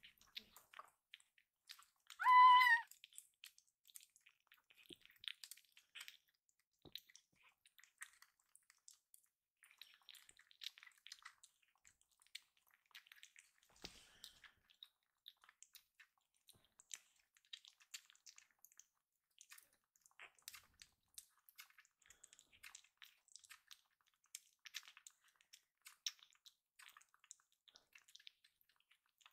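A hungry kitten gives one loud, short meow about two seconds in, rising in pitch as it starts, crying for more food. Then come faint, irregular wet clicks of the kitten suckling milk from a bottle nipple.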